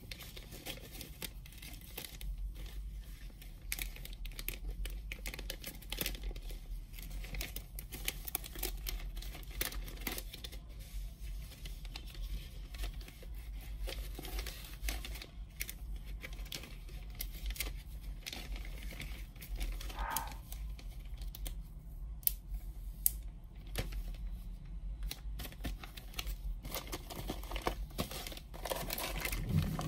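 Clear plastic packaging bags crinkling and rustling as they are handled, a steady run of small irregular crackles.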